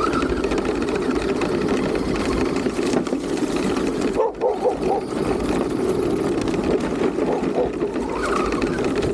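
RC car driving over dirt and dry leaves, picked up from the car itself: a steady drive and tyre noise that starts just before and eases off briefly about four seconds in.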